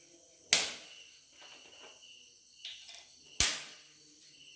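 Two sharp knocks about three seconds apart, with a fainter click between them, over a faint steady high chirring of crickets.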